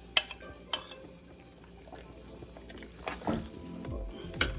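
Metal spoon scraping and clinking against a bowl and the rim of a metal cooking pot while a sauce is stirred in: a couple of sharp clinks near the start and more near the end. Background music with deep falling notes comes in about three seconds in.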